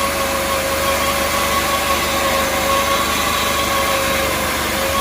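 Sawmill running steadily and loudly while it cuts a board from a black walnut cant, with a steady, even hum throughout.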